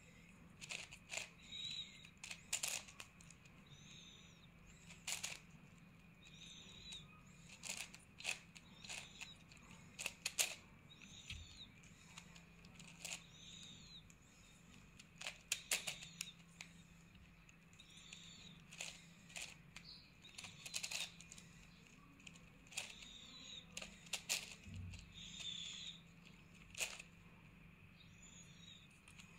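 Plastic 9×9 puzzle cube being turned by hand, its layers clicking and clacking at an irregular pace, with a faint steady hum underneath.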